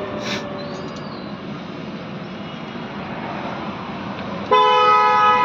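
Steady outdoor background noise, then about four and a half seconds in a loud, steady horn blast starts suddenly and holds.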